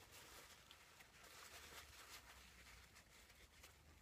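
Near silence, with faint soft rustling of a paper towel worked in the hands.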